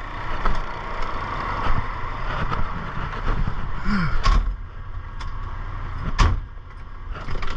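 Semi truck running, a steady engine noise, with two sharp knocks about four and six seconds in.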